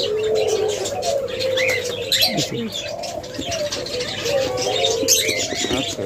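Diamond doves cooing, several birds overlapping into a continuous low, wavering coo, with a few short higher chirps. Scattered light clicks and rustles come from the birds and the cardboard box being handled.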